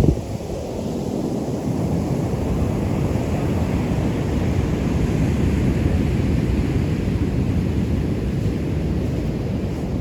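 Ocean waves washing onto a beach under heavy wind buffeting the microphone, a dense low rumble throughout, with the hiss of surf swelling up in the middle and fading again.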